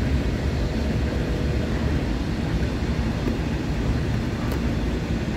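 Freight train hauled by a WAG-9 electric locomotive rumbling steadily along the track, a low continuous rumble of wagons on the rails.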